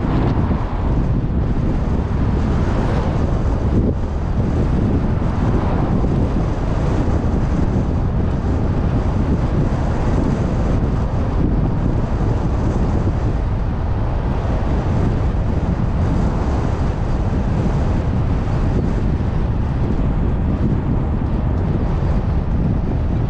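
Car driving along a road: steady road noise with wind blowing on the microphone.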